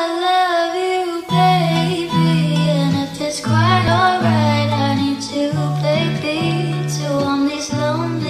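Background music: a sung melody over plucked guitar, with a bass line coming in about a second in.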